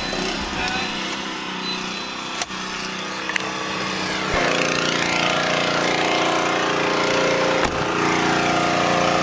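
A pressure washer running steadily in the background, muffled at first and much louder from about four seconds in, when the car door is opened. A couple of clicks and a door thump come near the end.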